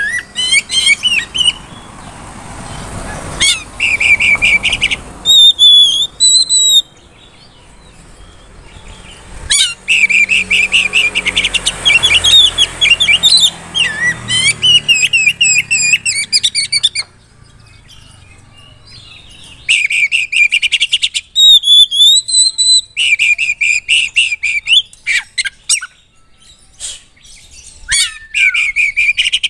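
Oriental magpie-robin singing loudly in bursts of rapid trills and clear, sweeping whistles, with pauses of a couple of seconds between bouts. It is a varied full song packed with imitated phrases.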